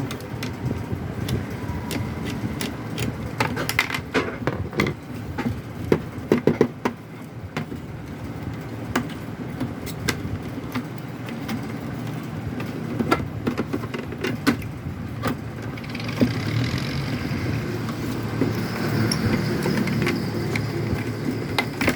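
Scattered clicks and knocks from the plastic visor of a Honda Pridor motorcycle's headlight and the tools as it is unfastened and pulled off, with a quick cluster of knocks about six seconds in. A steady low rumble underlies it, with a faint hiss joining near the end.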